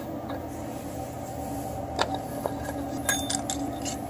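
A few light metallic clinks and clicks as a Jacobs rubber-flex collet is handled and taken apart at the lathe spindle nose, with a small cluster of clinks a little after three seconds in, over a steady background hum.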